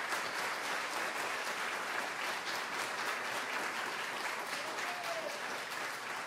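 Theatre audience applauding steadily, with a brief falling tone about five seconds in.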